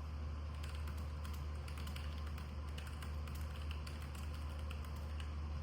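Typing on a Keychron K5 Max low-profile mechanical keyboard with Gateron brown switches: a fast, continuous run of key clicks.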